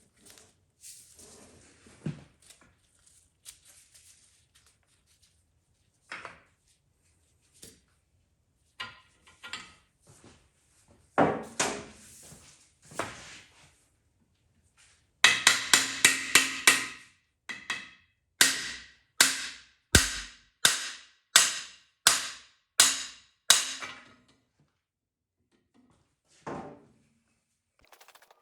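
Hammer blows on a cam bearing removal bar, driving a cam bearing out of a small-block LT1 engine block. Scattered clanks of metal come first; about halfway through a quick flurry of strikes follows, then a steady run of about nine blows a little over half a second apart.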